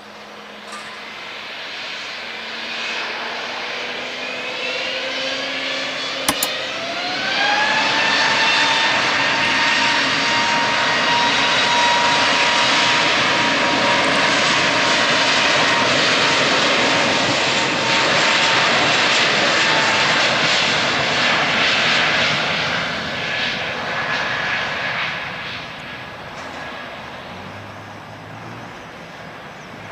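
Airbus A320neo turbofan engines spooling up to takeoff thrust, a whine rising in pitch over the first several seconds. Then a loud steady rush with a held whine as the airliner rolls down the runway, fading over the last few seconds as it moves away. A brief sharp click about six seconds in.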